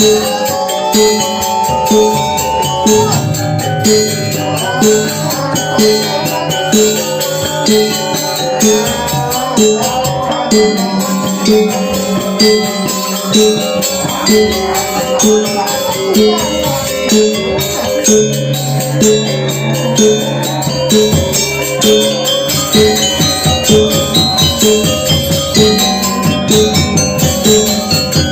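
Music with a steady beat a little faster than one a second, with sustained pitched tones and a light jingling rattle over it.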